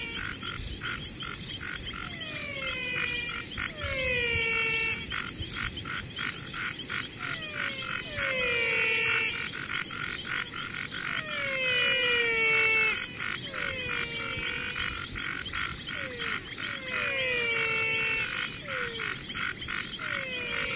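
Soundtrack of night-time animal calls: a steady high insect-like drone under rapid pulsing chirps, with falling whistle-like calls every second or few seconds.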